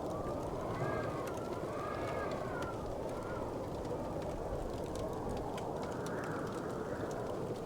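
Wood fire crackling in a fireplace, with scattered sharp pops over a steady rushing background. In the first few seconds a faint whistling tone rises and falls several times.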